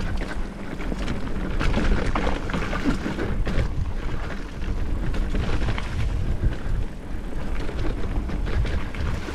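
Mountain bike riding a dirt trail: a constant rumble of wind and tyres on the mic, with frequent short rattles and knocks from the bike over bumps.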